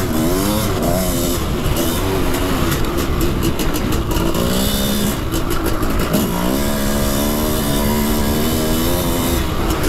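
Custom-built 700cc two-stroke dirt bike engine being ridden hard on a motocross track, revs rising and dropping repeatedly through the throttle and gears, then holding a steadier note for a few seconds near the end.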